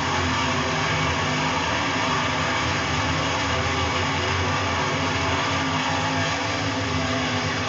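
Field of dirt Super Late Model race cars running flat out around the track, a loud, steady blend of many V8 race engines.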